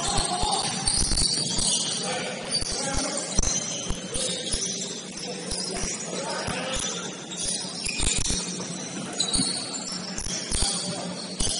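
Sounds of basketball play on an indoor court: irregular thuds of the ball and feet on the floor under a high, jingling clatter.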